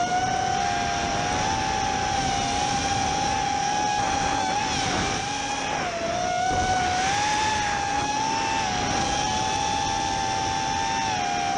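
Racing quadcopter's brushless motors and propellers whining, recorded on its onboard camera. The pitch wavers up and down with the throttle, dipping briefly about six seconds in and then climbing again, over a steady hiss of air.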